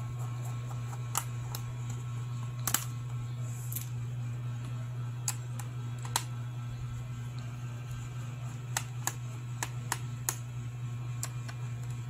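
Sharp plastic clicks and snaps, about a dozen spread irregularly, as a laptop's bottom cover is pried off its clips, over a steady low hum.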